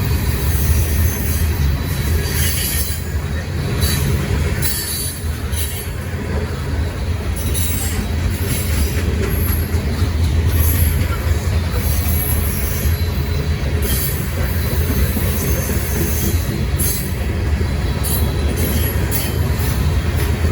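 Freight train rolling past with a steady low rumble of wheels on rail, and a high-pitched wheel squeal that comes and goes.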